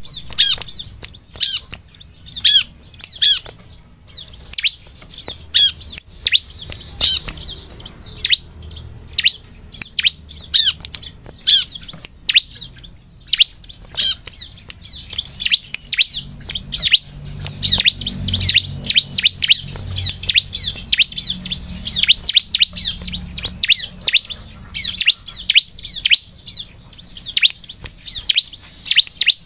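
Bar-winged prinia (ciblek) calling: a rapid, irregular stream of sharp, high chirps, many sweeping downward, coming in runs that speed up and slow down.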